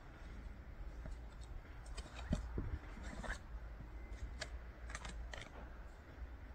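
Scattered crisp crunches and clicks of snow, irregular in timing, over a low rumble of wind on the microphone.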